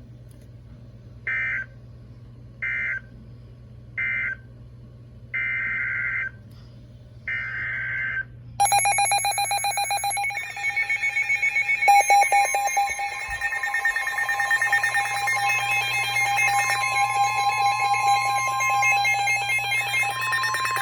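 Emergency Alert System signalling: five short screeching digital data bursts about a second apart, the last two longer, then a harsh, pulsing alert attention tone that runs for about twelve seconds.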